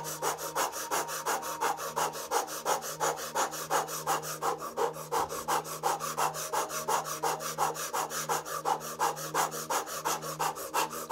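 A woman's rapid, forceful breathing through pursed lips, the in- and out-breaths following each other evenly about five strokes a second. It is a set of about 30 quick deep breaths in a breathwork exercise.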